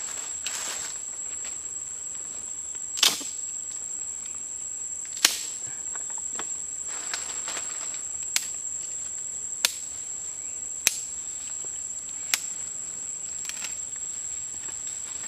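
Steady high-pitched drone of insects, with six sharp clicks spaced one to two seconds apart, the first two the loudest, and a few soft rustles.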